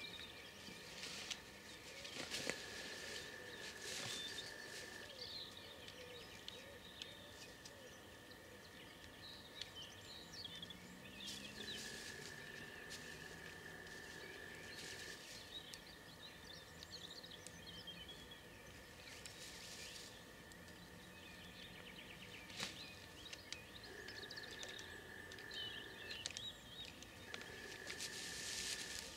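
Faint songbird chirps and calls, with rustling and a couple of sharp clicks as a shotgun and hunting kit are handled.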